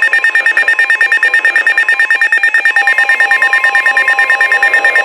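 Emergency alert tone between weather warnings: a loud electronic beeping that pulses rapidly, about ten times a second, with a steady lower tone joining about three seconds in.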